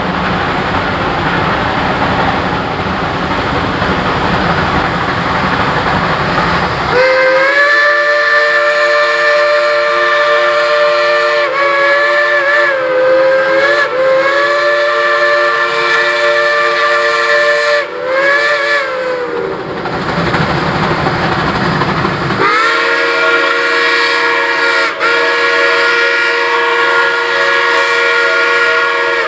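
Double-headed Shay geared steam locomotives working toward the listener with a dense, steady rumble of exhaust and running gear. About a quarter of the way in, a steam whistle starts a long blast of several notes sounding together, wavering in pitch now and then. It stops after about twelve seconds, then comes in again for another long blast near the end.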